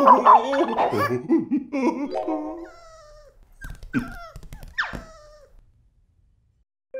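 Cartoon dog whining and whimpering: a busy run of cries at first, then a few short whimpers that fall in pitch and die away about five and a half seconds in. It is a dog in a cone collar, frustrated that it cannot reach its food.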